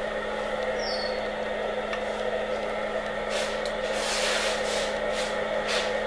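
Steady electrical hum with a fan-like whir and a constant low tone. About halfway through, bursts of hiss and rustling come and go.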